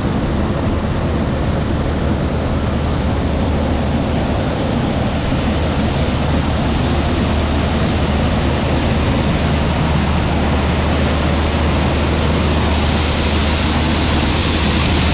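Combine harvester running steadily while harvesting corn with a 12-row corn head: an even, dense rush of machine noise over a constant low hum.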